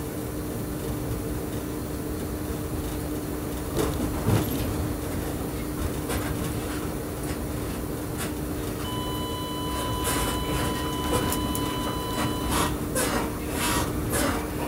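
Inside the cab of a moving electric train: a steady drone with a low hum, and a couple of knocks about four seconds in. Past the middle, a steady high electronic beep sounds for about three and a half seconds. Then comes a quick run of sharp clacks from the wheels on the rails.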